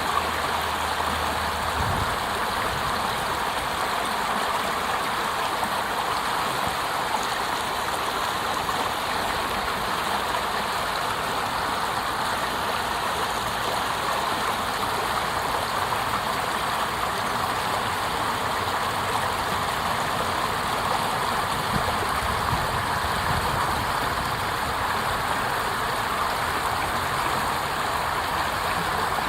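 Water cascading over a small fall, a steady rushing.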